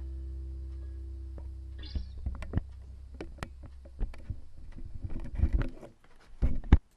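Recorded music played back through Thonet & vander Kugel loudspeakers: a held low chord dies away over the first two seconds, then a run of scattered sharp percussive hits, cutting out to a brief silence at the very end.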